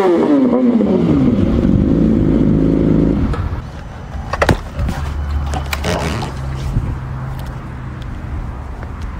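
Sport motorcycle engine winding down, its pitch falling steadily as the bike slows, then idling low from about three seconds in, with two sharp clicks near the middle.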